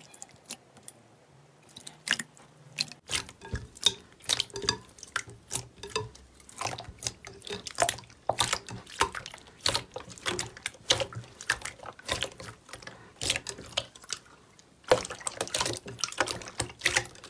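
Clear, watery slime being pressed and kneaded by hand, making quick irregular wet clicks and squelching pops. The clicking starts about two seconds in, stops for about a second near the end, then starts again.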